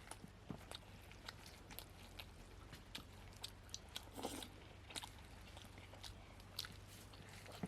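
Close-up eating sounds: mouth smacks and chewing of poori with mutton curry, a scatter of short wet clicks, with a faint steady hum underneath.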